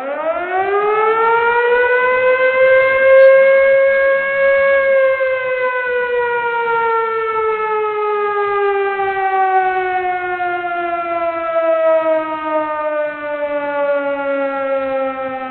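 A siren wail that rises in pitch over about four seconds, then slides slowly and steadily down.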